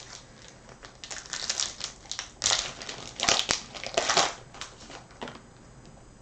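Trading-card pack wrapper crinkling as it is handled, in several sharp bursts, loudest in the middle.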